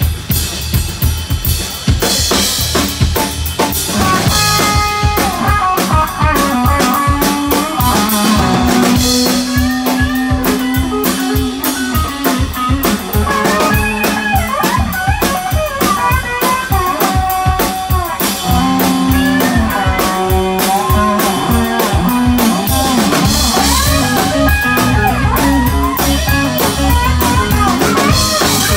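Live blues band playing an instrumental passage: drum kit and electric bass under a lead electric guitar line with bent notes.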